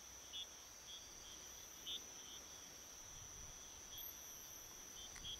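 Faint night insects: a steady high-pitched drone with scattered short chirps.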